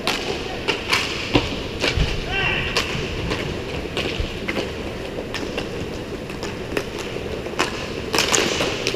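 Roller hockey play: scattered sharp clacks of sticks and a puck against the floor and boards over steady rink noise, with a brief shout about two and a half seconds in.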